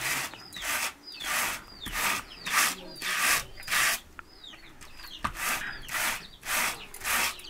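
A pair of wire-toothed hand cards brushing raw wool: a rhythmic rasping stroke about every 0.6 seconds, with a brief pause about four seconds in.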